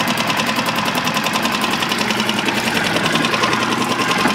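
Mercury 3.5 hp single-cylinder four-stroke outboard motor idling smoothly in neutral, an even rapid beat.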